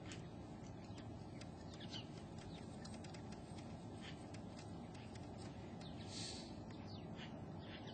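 Faint outdoor background with scattered small bird chirps, high and short, throughout. A brief soft hiss about six seconds in.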